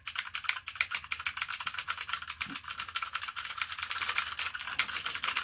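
Rapid typing on an Apoint TUF mechanical keyboard with clicky blue switches: a fast, continuous run of sharp key clicks, many strokes a second.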